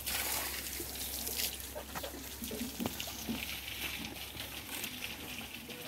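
Water trickling and splashing, poured from a plastic jug onto chopped green fodder in a cattle trough, over a steady hiss with a few small scattered sounds.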